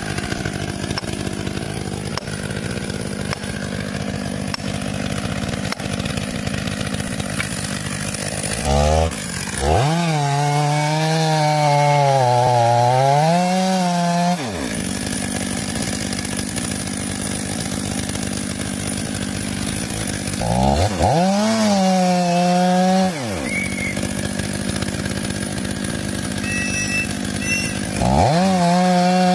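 Chainsaw running steadily, revved to full throttle three times; each time the engine note rises sharply, then wavers and sags as the chain cuts through wood.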